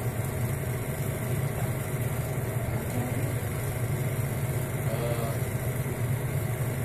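16mm film projector running: a steady mechanical whir and low hum from its motor and fan as the film runs through.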